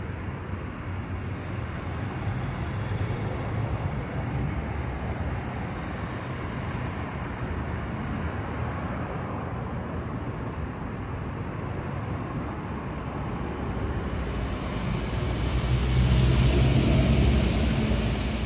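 Steady outdoor traffic rumble, growing louder for a few seconds near the end.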